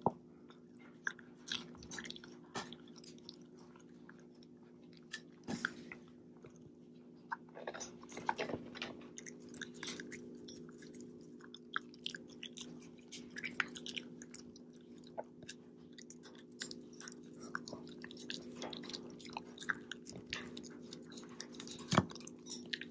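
A Shiba Inu chewing its food slowly: irregular crunchy clicks, sometimes several in a quick run and then a pause. A steady low hum runs underneath.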